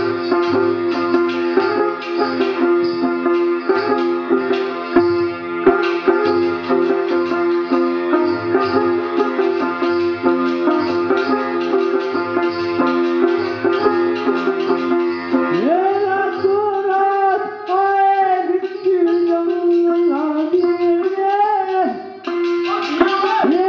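Pothwari folk music: a plucked string instrument playing quick notes over a steady drone, then a voice begins singing the sher with sliding, ornamented notes about two-thirds of the way in.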